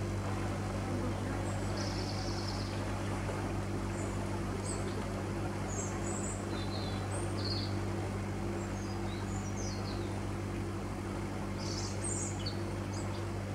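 Narrowboat's inboard diesel engine running steadily under way, a constant low drone, with birds chirping now and then.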